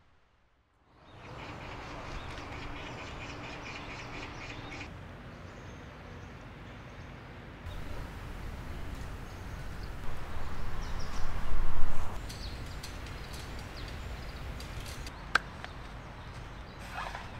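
Outdoor ambience: a steady hiss with faint bird calls, then from about eight seconds a deeper rumbling noise that swells for a couple of seconds and falls back, with a sharp click near the end.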